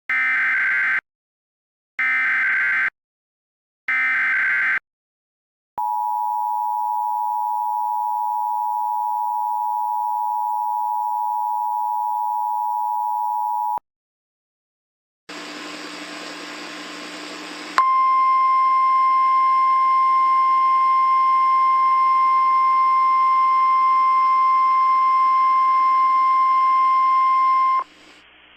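Emergency Alert System tones. Three one-second bursts of the warbling SAME digital header come a second apart, then the two-tone attention signal holds steady for about eight seconds. After a short pause and a brief burst of hiss, a single steady alert tone sounds over background hiss for about ten seconds.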